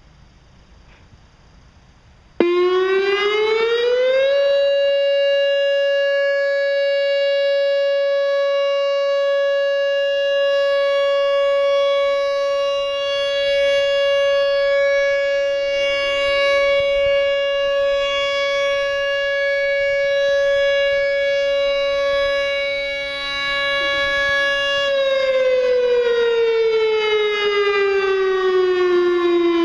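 Whelen WPS-3016 electronic outdoor warning siren sounding a test tone. It starts suddenly a couple of seconds in, rises in pitch for about two seconds, holds one loud steady note for about twenty seconds, then slides down in pitch near the end.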